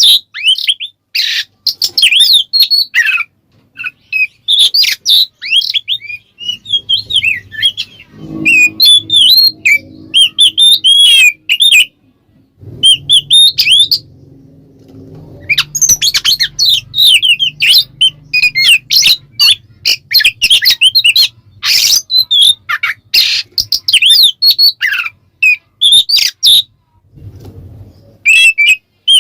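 Oriental magpie-robin (kacer) singing loudly in the clear, open "ngeplong" style: bursts of rapid, varied whistled phrases with short pauses between them, and a few harsh, buzzy notes mixed in.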